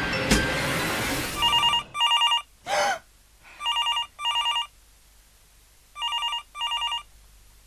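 Telephone ringing with the British double ring: three pairs of short trilling electronic rings, the first beginning about a second and a half in. Music fades out under the first ring, and a brief sweeping whoosh falls between the first and second pairs.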